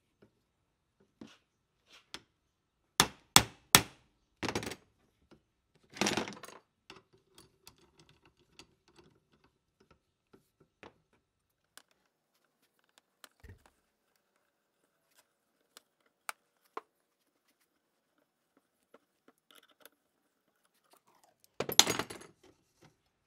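Metal clicks and clanks from a two-jaw gear puller and the rusted steel wheel flange of an old bench grinder as the puller is fitted and worked. There are three sharp clicks about three seconds in and short rattles soon after. Near the end comes a burst of clattering as the flange comes loose on the shaft.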